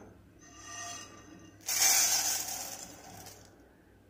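Roasted urad dal poured from a metal pan onto a plate. A faint ringing of the pan comes about half a second in. Then the dry grains rush and rattle down for about a second and a half, fading out.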